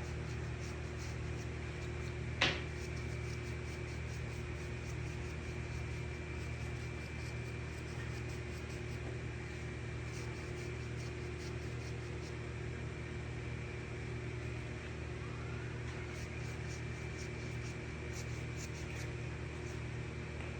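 Steady mechanical hum from a running machine, with a single sharp click about two and a half seconds in.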